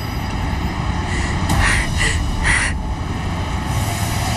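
Steady low rumble of background ambience, with a few short breathy sounds, like sobbing breaths, about halfway through.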